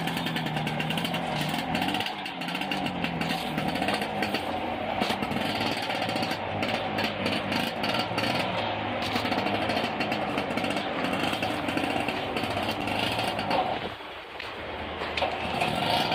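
Single-cylinder two-stroke engine of a 1990 Vespa PX 200 scooter running under way on a test ride, with a buzzing engine note. The engine drops off briefly about fourteen seconds in, then picks up again.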